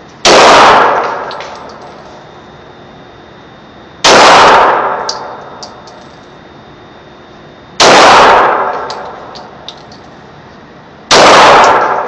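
.40-calibre Glock pistol fired four times, slowly, about one shot every three and a half to four seconds, each shot very loud and ringing out for about a second. Light ticks follow the shots.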